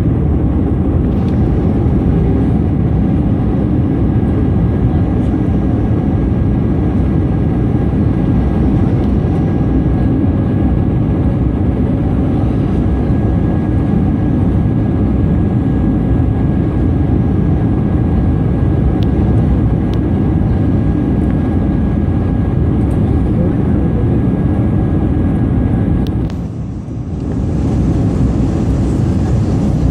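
Steady roar of the Airbus A220-300's Pratt & Whitney PW1500G geared turbofans and the airflow, heard inside the passenger cabin, with a faint steady whine through the middle. The noise dips briefly for about a second near the end.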